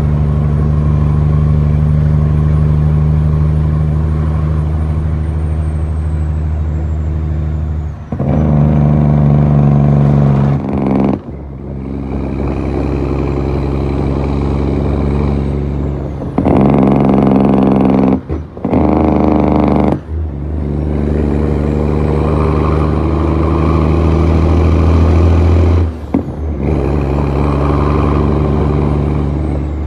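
Western Star truck's diesel engine pulling under load through the gears. The engine note breaks off briefly about six times as gears are changed, then picks up again, with a faint high whistle rising and falling with engine speed.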